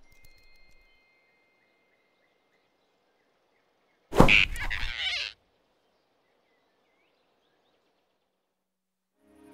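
Animated-film sound effect: a single sudden loud whoosh, about a second long, about four seconds in, with near silence around it.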